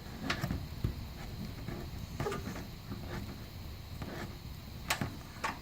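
Faint handling noise with a few sharp clicks as a screw is started by hand through the plastic wheel well liner into a metal clip.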